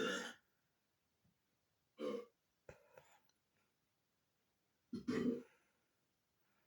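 Three loud burps from a burping sound effect, spaced about two to three seconds apart, with a few faint short clicks just after the second.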